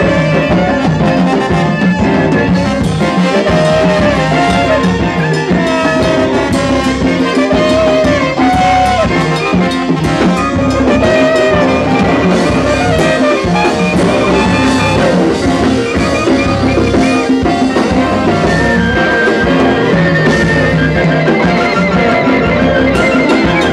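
Live jazz ensemble playing loud, dense music: a horn section led by trombone and trumpets over piano, bass and drum kit, with horn lines bending and wavering in pitch.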